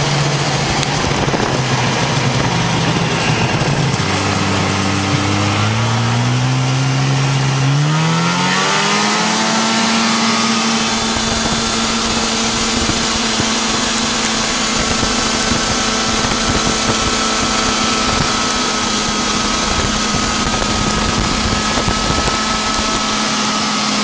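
Snowmobile engine running, its pitch climbing from about four seconds in to about nine seconds, then holding at a steady higher speed.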